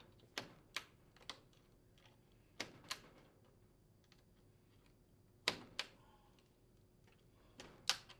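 Wire connectors clicking as they are pulled off the induction range's control module terminals: four pairs of sharp clicks a couple of seconds apart, the later ones the loudest.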